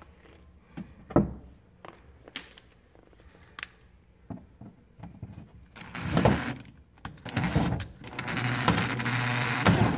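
Light scattered knocks and clicks of handling, then from about six seconds in a cordless drill running in two short bursts and then steadily, boring a quarter-inch hole through a plastic mud flap.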